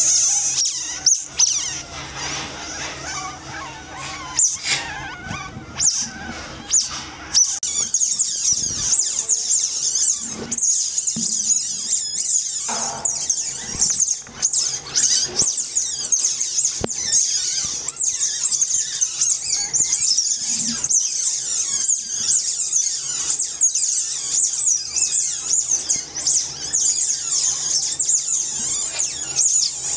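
Asian small-clawed otter pups squealing: a dense stream of rapid, high-pitched squeaks and chirps, many overlapping, thinner for a few seconds early and almost unbroken from about a quarter of the way in, with a few knocks.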